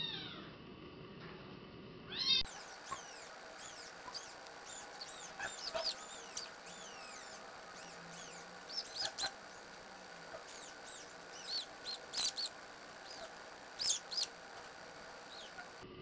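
Newborn kitten, a few days old, mewing in short, high-pitched cries, repeated at irregular intervals, the loudest about twelve seconds in.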